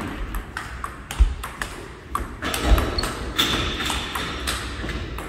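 A table tennis rally: the ball clicking sharply off the rackets and the table, one hit after another at an uneven pace.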